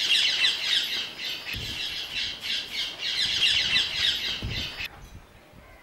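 A flock of birds calling in a dense, rapid chatter of short, high notes, which stops abruptly about five seconds in.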